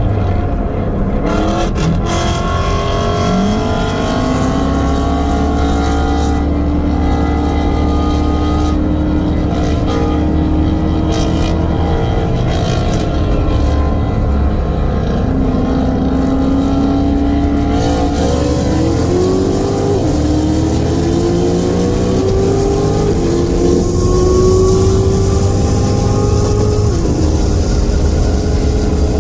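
Car engine under hard acceleration at highway speed, heard from inside the cabin: its pitch climbs slowly through each gear and drops back at the shifts, several times, over steady road and wind noise.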